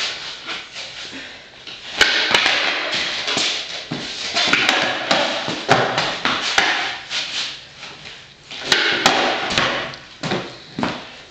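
Skateboard rolling on a concrete floor, the wheels giving a rough grinding noise that swells and fades, with several sharp clacks of the deck and tail striking the concrete at irregular moments.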